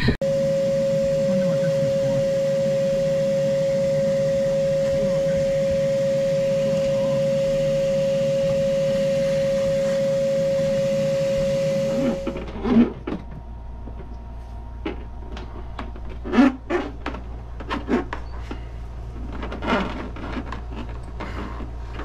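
Vacuum cleaner running steadily with a high, even whine, drawing on the air conditioner's condensate drain line to pull water out and test for a clog. It shuts off suddenly about twelve seconds in, followed by a few short knocks and clicks.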